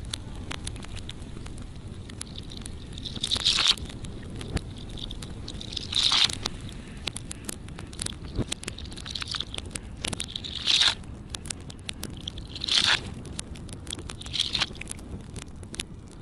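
Dry straw burning, crackling with many small pops, with about six brief louder surges as the fire flares.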